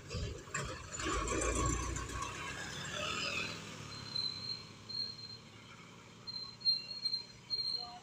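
A medium-sized diesel bus rumbles past close by and fades as it pulls away. In the second half a series of short, high-pitched chirps comes in, loudest near the end.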